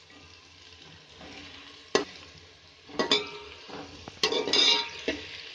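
Sliced onions sizzling in hot mustard oil as they soften. A perforated steel ladle stirs them, knocking and scraping against the aluminium pot several times, with a longer scraping clatter about four seconds in.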